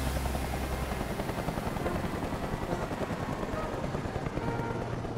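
Helicopter rotor chopping steadily over a low engine hum as the helicopter descends to land, getting slowly quieter.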